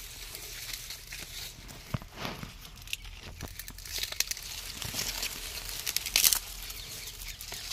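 Dry leaves and pearl millet stalks rustling and crackling as a rhesus macaque rummages among the plants, with a few louder crackles about two, four and six seconds in.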